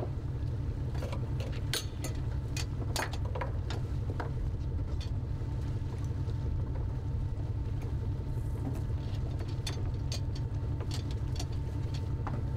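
Fishing boat's engine running steadily, a low drone with a faint steady whine above it, and scattered light clicks and knocks on deck.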